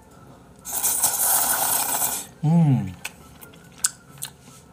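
A loud slurp of udon noodles lasting about a second and a half, followed by a short voiced grunt that falls in pitch, then a few faint clicks from chewing.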